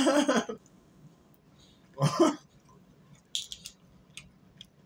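A man's voice briefly at the start and again about two seconds in, then a quick run of sharp little clicks as the cap of a plastic water bottle is twisted.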